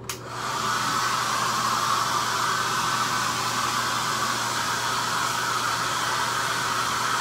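Handheld hair dryer clicking on and coming up to full speed within about a second, then blowing steadily: a rushing hiss with a steady whine in it, drying wet denim shorts.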